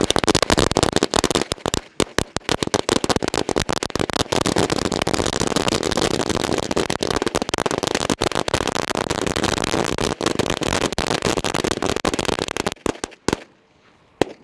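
A 1000-cracker firecracker string (ladi) going off in a fast, continuous chain of loud bangs. The chain stops near the end, with a couple of stray last pops.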